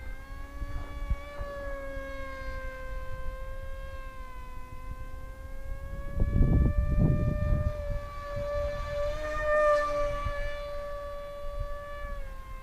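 Electric brushless motor and propeller of an RC delta-wing plane whining in flight, its pitch shifting a little with throttle and getting louder as the plane passes close about three quarters of the way through. Wind buffets the microphone about halfway in.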